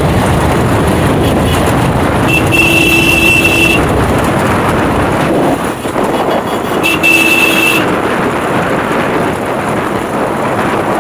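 Motorbike running along with steady engine and wind noise, and a horn sounding twice, the first toot about a second and a half long a couple of seconds in, the second about a second long near the middle.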